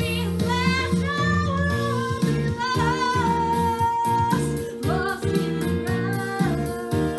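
A woman singing a musical-theatre song over instrumental accompaniment, holding one long note with vibrato about three seconds in.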